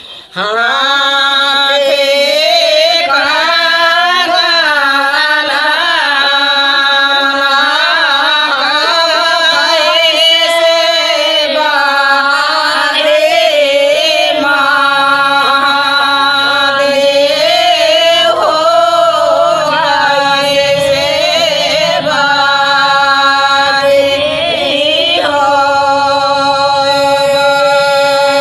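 Women singing a Bagheli wedding folk song (vivah geet) in bending phrases, with a steady held drone note beneath the melody. The singing picks up again just after a brief pause right at the start.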